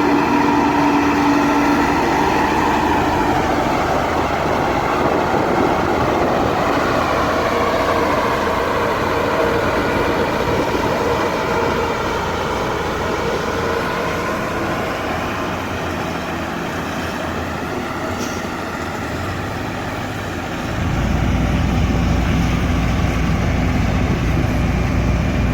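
Heavy construction machine engine running steadily, its pitch shifting a little midway. A deeper low rumble joins about 21 seconds in.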